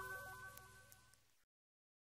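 Electronic end-screen music with a stepping synth melody, fading away and cutting to silence about a second and a half in.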